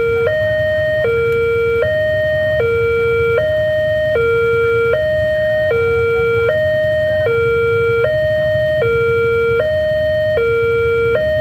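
Railway level-crossing warning alarm sounding, an electronic two-tone signal alternating steadily between a lower and a higher tone about every three-quarters of a second, with a low rumble beneath. It signals that a train is approaching and the crossing barrier is down.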